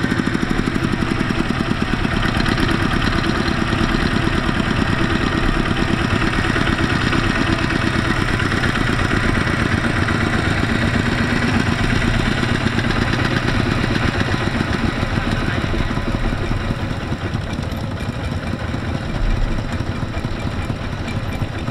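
Single-cylinder diesel engine of a Kubota two-wheel walking tractor running steadily with a rapid, even chug.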